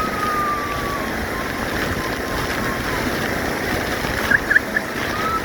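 Waterfall rushing steadily, with a few faint, high drawn-out calls over it and a quick cluster of short chirps about four and a half seconds in.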